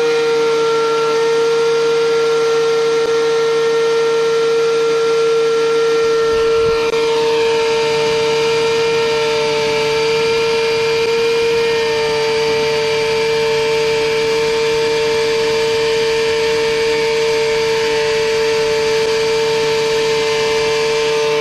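DeWalt benchtop thickness planer running under load as a rough-sawn cherry board feeds through its cutterhead, a loud steady high whine. About six to seven seconds in the sound grows fuller, with a lower rumble joining the whine.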